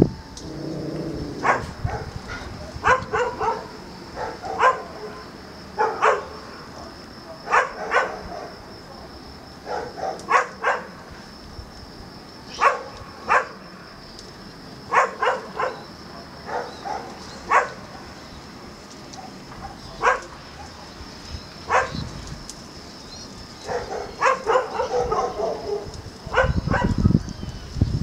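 Short animal calls, some single and some in quick clusters of two to four, every second or two, over a faint steady high-pitched tone. A low rumble comes in near the end.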